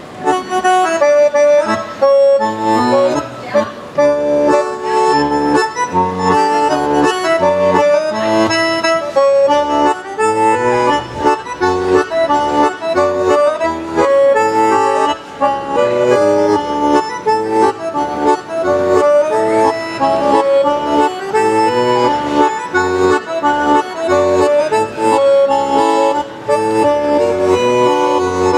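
Lively Danish folk dance music starts suddenly, a quick melody over a steady alternating bass.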